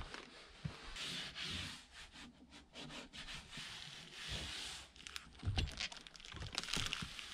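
Blueskin VP100 peel-and-stick membrane having its white backing liner pulled away and being rubbed flat onto plywood by hand. Stretches of hissy rubbing and peeling are broken by crackles of the liner, with a few soft knocks about two-thirds in.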